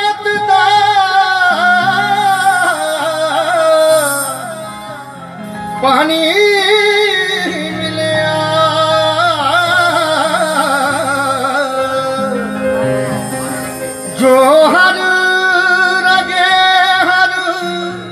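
A male singer holding long, wavering, ornamented vocal phrases without words in the Punjabi Sufi style, amplified through a PA, over sustained keyboard chords. There are three phrases, each starting high and sliding down, with short breaths between them about five and fourteen seconds in.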